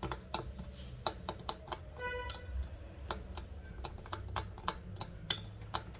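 Metal spoon clicking and scraping against a ceramic bowl while stirring a thick chocolate glaze, in quick irregular taps, with a short ringing tone about two seconds in.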